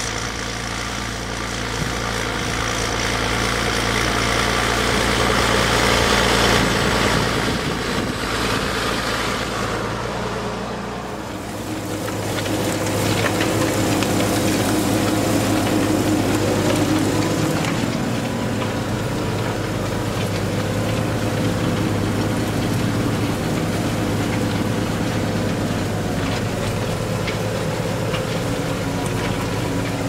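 Valtra T162e tractor's diesel engine pulling a Lemken plough under load at low revs, running steadily at about 1000 rpm. The sound changes about eleven seconds in as the microphone moves from outside onto the tractor.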